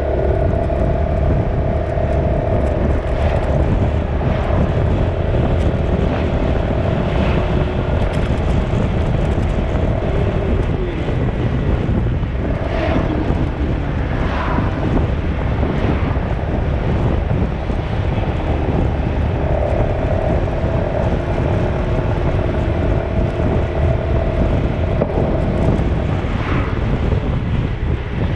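Motor vehicle on the move: a steady low rumble of engine and road noise, with an engine hum whose pitch shifts now and then.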